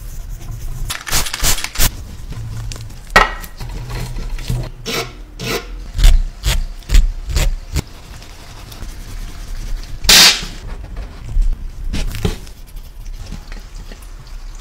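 Scrubbing and rubbing on a small filigree metal part, with a stiff brush and a scouring sponge, in irregular strokes. A longer, louder scrub comes a little past ten seconds in.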